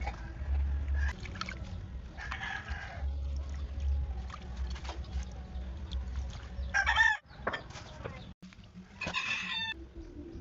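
Domestic chickens calling, with short pitched calls about seven and nine seconds in, over a low steady rumble.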